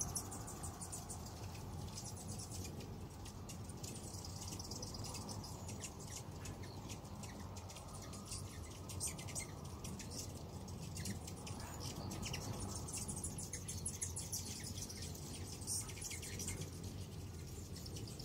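A large flock of hummingbirds feeding and squabbling at feeders: a dense, continuous stream of high-pitched chips and twitters, over a low steady hum.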